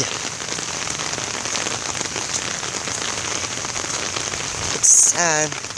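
Steady rain falling, an even hiss with fine drop ticks.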